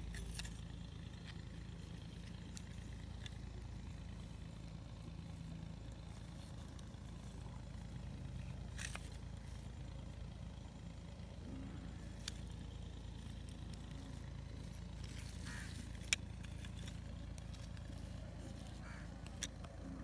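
Steady low outdoor background rumble, with a handful of faint sharp clicks scattered through it.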